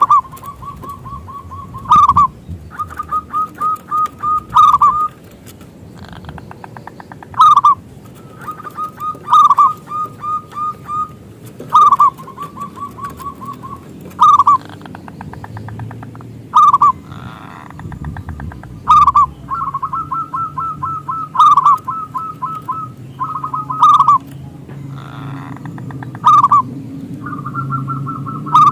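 Zebra dove (perkutut) cooing in its staccato song: quick strings of short, clipped notes on one pitch, broken by a louder accented coo about every two and a half seconds.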